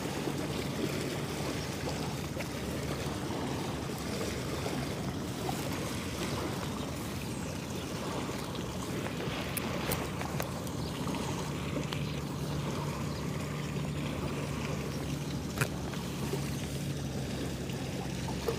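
Steady open-air background noise with a low steady hum underneath, and one sharp click about three seconds before the end.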